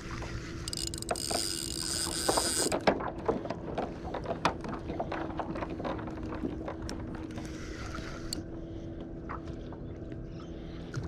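Spinning reel being wound on a kayak: a run of small mechanical clicks and knocks over a steady low hum, with a short hiss in the first few seconds.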